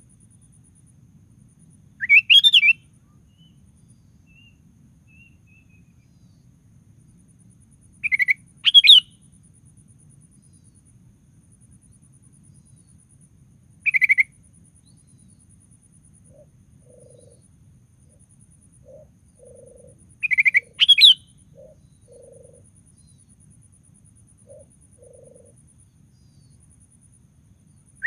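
Sooty-headed bulbul (kutilang) singing short, bright chirping phrases every five or six seconds, some in quick pairs, over a faint low background hum.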